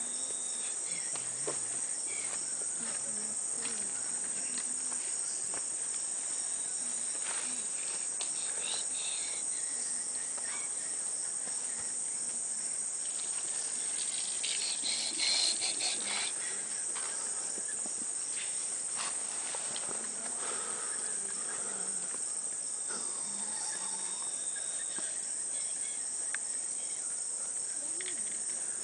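A steady, high-pitched chorus of insects, with a louder patch of chirring about halfway through.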